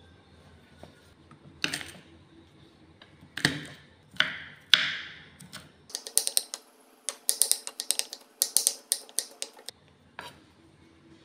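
Kitchen prep sounds: a few separate knocks and clinks that ring briefly, then quick runs of sharp taps several to the second.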